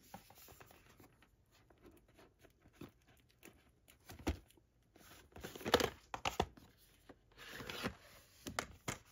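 Plastic Blu-ray keep cases being slid out of a cardboard slipcase and handled: a few quiet seconds, then scattered clicks and rubbing of plastic and card from about four seconds in, busiest near the end.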